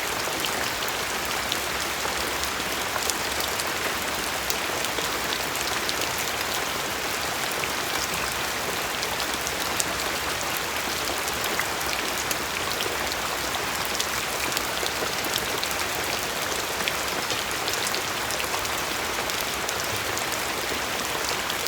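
Steady rain falling, a constant hiss with scattered sharp drip ticks throughout.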